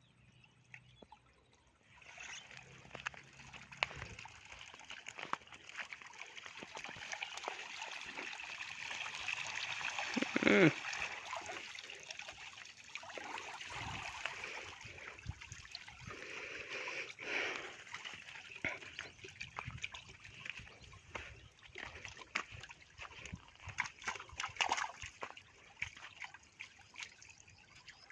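Water splashing and trickling: many small splashes and drips over a steady wash of water. The loudest splash comes about ten seconds in.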